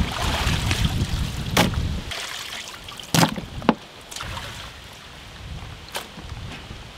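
Water sloshing and splashing in a large aluminium pot as mutton ribs are washed by hand, easing off after about two seconds. Four sharp knocks are spread through it.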